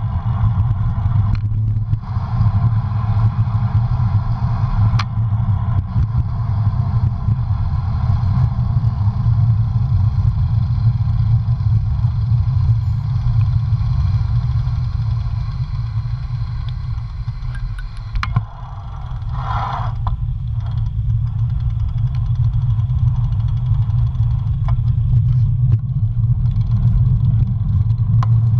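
Wind rushing over a bicycle-mounted camera's microphone, with road noise from a bicycle riding on pavement: a loud, steady low rumble with a few faint clicks. A short higher-pitched sound comes about two-thirds of the way in.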